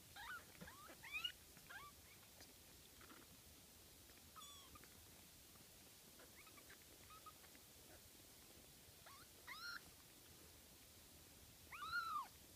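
Young kittens mewing: short, thin, high mews that rise and fall in pitch. There are several in the first two seconds, a few scattered through the middle, and the loudest near the end.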